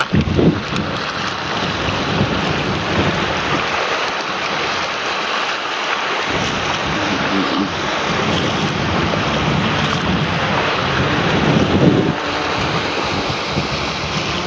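Waves washing and churning over rocky shallows, with strong gusty wind buffeting the microphone.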